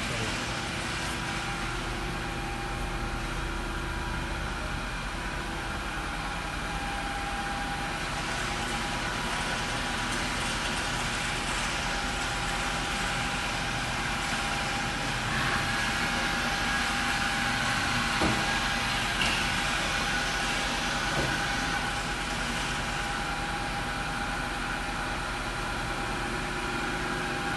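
A 1997 Haas VF-6 CNC vertical machining center running, a steady machine hum with a thin high whine, swelling slightly about halfway through, with a couple of faint knocks.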